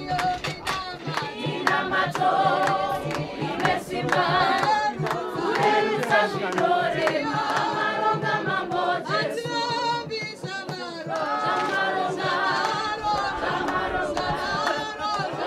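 A congregation of mourners singing a hymn together, many voices at once.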